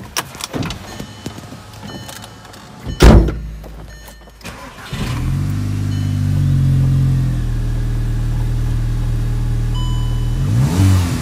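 A 2007 Volkswagen Eos's 2-litre turbo four-cylinder engine starts about five seconds in, catches at once and settles into a steady idle with no sputtering, running on freshly fitted spark plugs and coil packs. A sharp thump comes about three seconds in, before the start.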